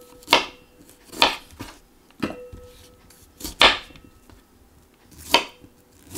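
Kitchen knife cutting cauliflower florets on a wooden chopping board: five crisp cuts about a second apart, each ending as the blade knocks the board, with a quick double cut near the middle.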